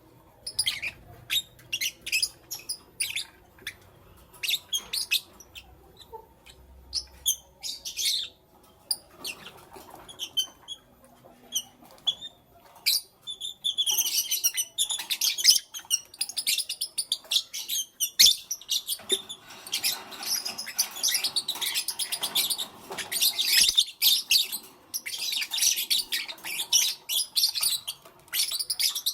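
Lovebirds chirping: scattered short, high chirps at first, turning about halfway through into a dense, continuous chatter of many overlapping chirps.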